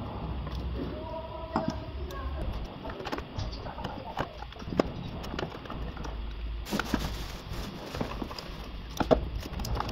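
Irregular clicks and knocks of hands handling car parts underneath a vehicle, moving the orange high-voltage cable by the hybrid inverter, with a low rumble underneath.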